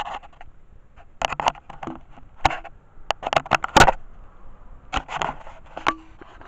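Close handling noise: irregular scraping, rustling and sharp knocks, the loudest knock about four seconds in, as the doll and the handheld camera are moved about on bedding.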